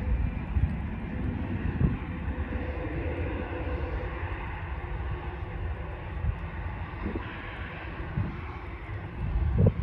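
Boeing 737-700 jet engines (CFM56-7B) running as the airliner rolls along the runway on arrival: a steady rumble with a hiss above it. Wind buffets the microphone throughout, with the strongest gust near the end.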